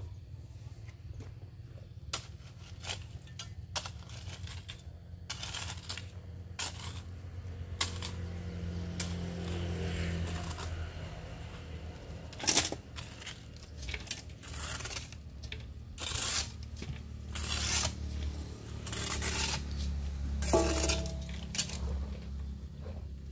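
Long-handled shovel scraping and scooping loose soil off a concrete path at an irregular pace, over a steady low hum. Now and then there is a sharper clank as the blade hits the metal basin, once with a short ring near the end.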